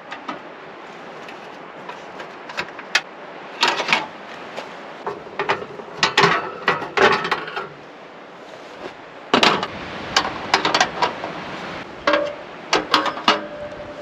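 Irregular knocks, clicks and clatter of hand work on the cabin, coming in uneven clusters over a steady background hiss, with a brief ringing tone near the end.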